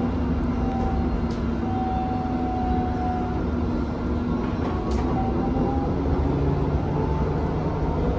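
Alstom Citadis X05 light rail tram heard from on board while travelling: a steady running rumble with the electric traction drive's faint hum, which shifts in pitch as the speed changes and starts to rise again after about six seconds, plus a couple of faint clicks.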